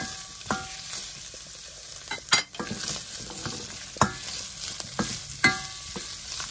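Diced fatty meat and a pat of butter sizzling in a stainless steel pan while a wooden spatula stirs and scrapes it. Sharp knocks of the spatula against the pan come every second or so, some ringing briefly in the metal, the loudest about four seconds in.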